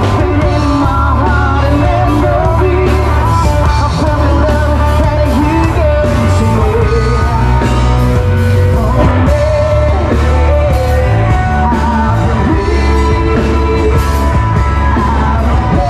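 Loud rock song with a singing voice over a heavy, steady bass line.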